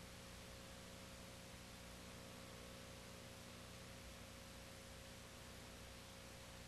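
Near silence: a steady faint hiss with a low electrical hum and a thin steady tone, the noise floor of an old film-to-video transfer.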